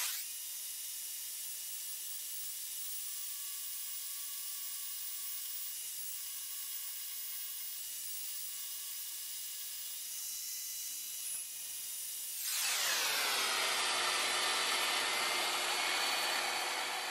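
Band saw cutting thin steel plate: a steady whine and hiss from the blade and motor. About twelve seconds in it grows louder and fuller, and its pitch slides down.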